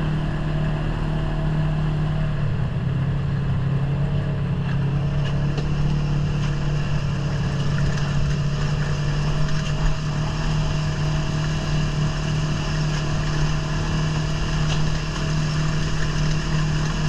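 ATV engine running steadily at an even pitch while riding, with rumble and rushing noise around it.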